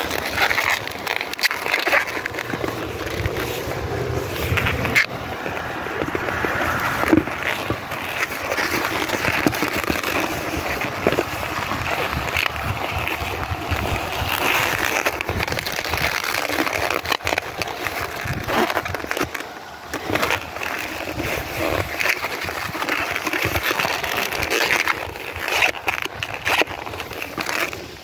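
Latex modelling balloons squeaking and rubbing against each other and against the hands as they are twisted and bent, with frequent irregular squeaks and crackles.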